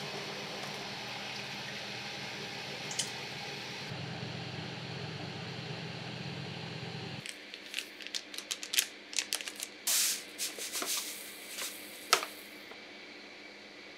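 Steady low hum of running kitchen appliances, a lit gas burner and then an oven. About seven seconds in it gives way to a run of crisp rustles, clicks and sprinkling as a packet of toasted sesame seeds crinkles and is poured over rice in a glass bowl.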